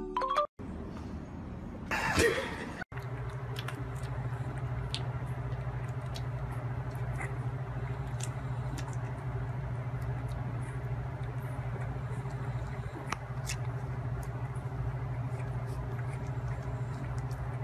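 Newborn puppies suckling at their mother: many small wet clicks and smacks scattered over a steady low hum. A brief loud rustling burst comes about two seconds in.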